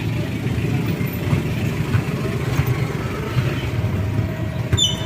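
Road traffic: a steady low rumble of a motor vehicle engine running. A brief high squeak comes near the end.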